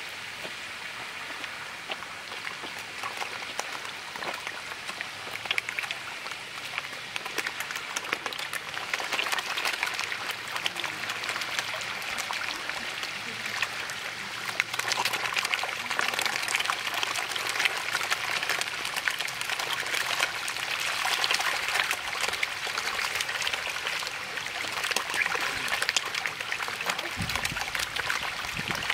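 A dense shoal of carp thrashing and splashing at the water's surface in a feeding frenzy over thrown feed pellets. It is a continuous crackle of many small splashes that builds up over the first several seconds and then stays busy.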